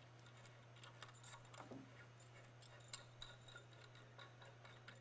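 Near silence with faint scattered metal clicks as a leg bolt with its washer is fitted into a log porch swing's bolt hole, over a low steady hum.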